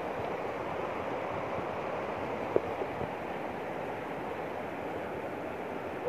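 Steady rushing of a mountain stream over rocks, with one short sharp click about two and a half seconds in.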